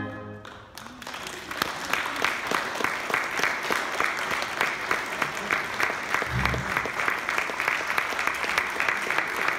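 An orchestra's final held chord, with brass, stops right at the start and rings away. Then an audience breaks into applause about a second in, building into steady clapping.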